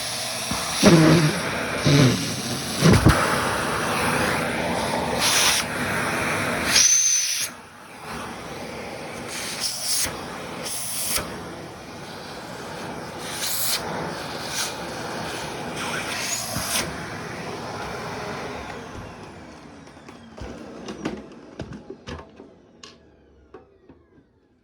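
Vacuum cleaner running on socks, with the suction noise changing in level and a brief high whistle about seven seconds in. It then winds down and fades out near the end.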